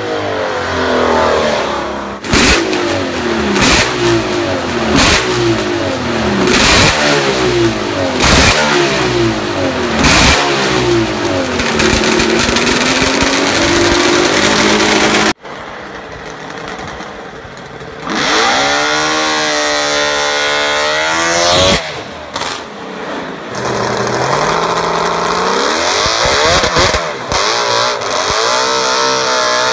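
Custom 3.6-litre two-stroke V8 in a gutted Volvo 122 Amazon, revved hard again and again, its pitch climbing and dropping with each rev and with sharp pops between revs. After a sudden cut about 15 seconds in, it revs up in a long rising sweep.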